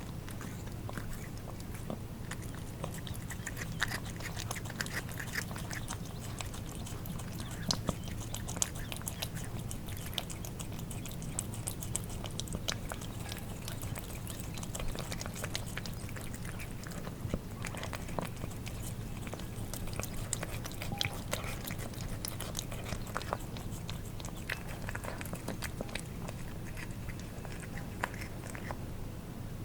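Cats eating wet food: many quick, wet licks, smacks and chewing clicks of tongues and jaws in the food, over a steady low hum.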